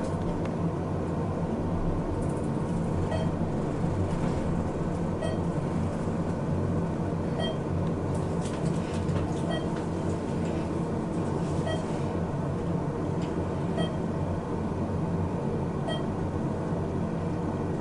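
Thyssenkrupp traction elevator car in motion: a steady low rumble and hum of travel inside the cab. A short high beep repeats about every two seconds.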